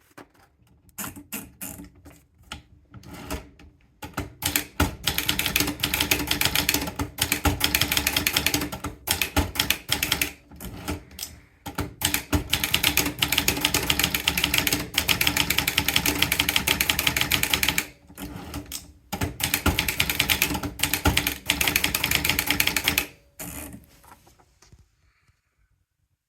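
Vendex S300 typewriter being typed on. A few separate keystrokes come first, then fast, continuous typing with two short pauses, and the typing stops a few seconds before the end.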